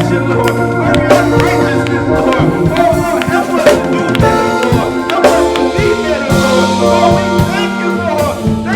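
Live gospel band playing: a drum kit keeps a steady groove under sustained organ chords.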